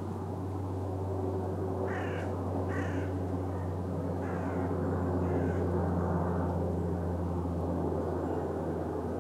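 A crow cawing four times, about a second apart, over a steady low engine drone.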